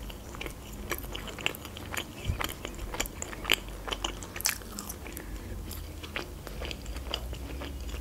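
Close-miked chewing of marshmallows, with many short wet mouth clicks and smacks.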